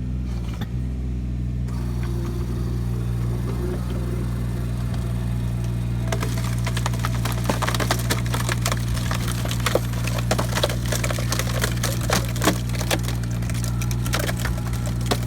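Takeuchi TB219 mini digger's diesel engine running steadily while a hydraulic cone splitter drives into a log. From about six seconds in the wood cracks and splinters repeatedly as it splits apart.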